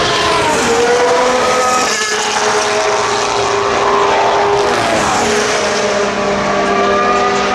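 Racing car engines at high revs passing on the circuit, their pitch falling and rising as they go by, over a steady pitched drone.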